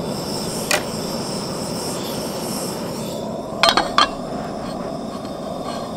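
Gas camp stove burner running with a steady rush, with a sharp click about a second in and a few loud metal clanks around four seconds in as a frying pan is set down on the stove's grate.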